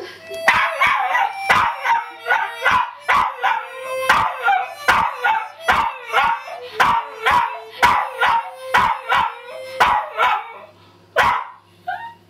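A harmonica played in short rhythmic blasts, about two a second, with a small white terrier howling along; both stop near the end.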